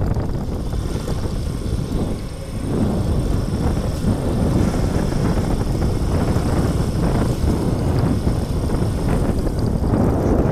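Motorcycle running along a rough lane at moderate speed, its engine and road noise mixed with wind buffeting the microphone, with a brief dip in loudness about two seconds in.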